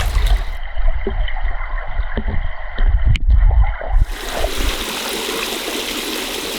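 River water rushing. For about the first four seconds it is muffled under heavy low rumbling, with a few sharp knocks near the middle; then it becomes a steady, even rush of the stream.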